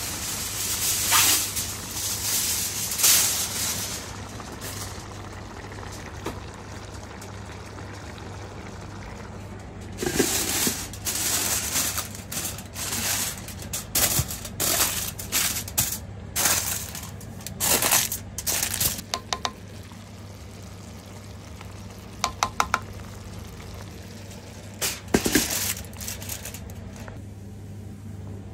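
Chicken pulao bubbling and hissing as it simmers in the pan, over a steady low hum. Then aluminium foil rustles and a glass pot lid clinks and knocks as the pot is covered and sealed for the final steaming (dum), with a short run of quick clinks and one more clatter near the end.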